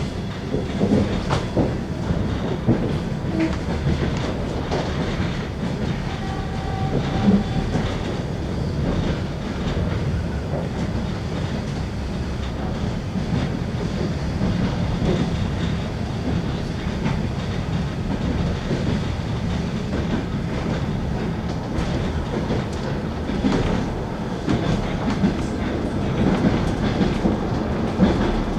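Passenger train running on the open line, its wheels knocking over the rail joints in a continuous clickety-clack, heard from aboard a passenger car.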